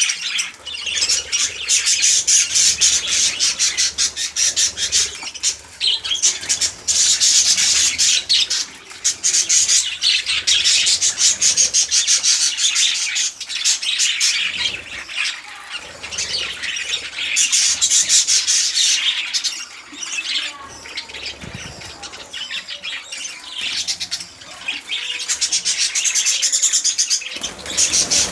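A group of budgerigars (budgies) chattering and squawking together in a continuous busy din, easing off in a few short lulls.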